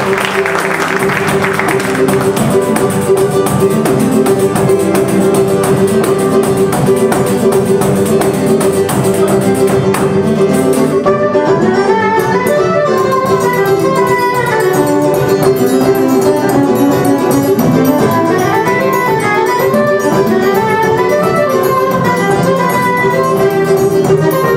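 Live choro quartet playing a baião: cavaquinho, acoustic guitar and hand percussion keep up the accompaniment, and a soprano saxophone comes in with the melody about eleven seconds in.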